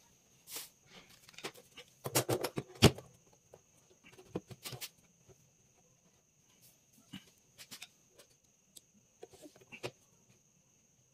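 Scattered clicks, knocks and rustles of a large woofer driver and its wires being handled and set into the cutout of a speaker cabinet, with a cluster of louder knocks about two to three seconds in. A faint steady high whine and low hum run underneath.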